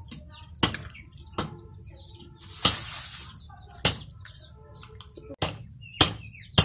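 Thin plastic bag crinkling and rustling, with sharp clicks and taps, as raw duck meat is handled into a steel bowl. Near the end come a couple of sharp knife chops through meat on a bamboo block.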